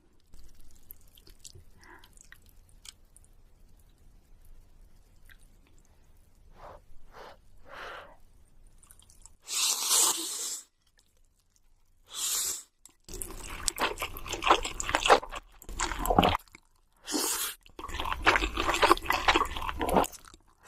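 Close-miked eating sounds of crispy fried chicken being bitten and chewed. Faint mouth clicks come first; from about halfway there are short loud bursts, then long runs of dense crunching.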